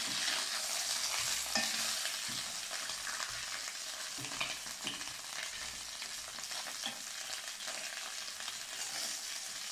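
Chicken pieces sizzling steadily as they fry without added oil in their own rendered fat in a stainless-steel Saladmaster electric skillet. A few short knocks of a fork against the pan as the pieces are turned, mostly in the first half.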